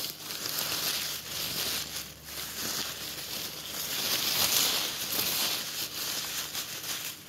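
Subway sandwich wrapping paper being crinkled and crumpled by hand, a continuous dense rustle that stops suddenly at the end.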